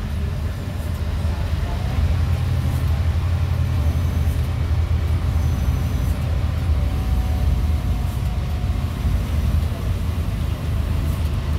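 Steady low drone of a Scania K280UB bus's five-cylinder diesel engine and road noise, heard from inside the cabin at highway speed. A faint whine sits over it through the middle and falls slightly in pitch.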